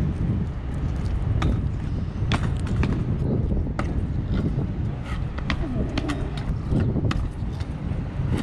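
Stunt scooter wheels rolling over asphalt and paving with a steady low rumble, and scattered sharp clicks and knocks from the wheels and deck on the pavement.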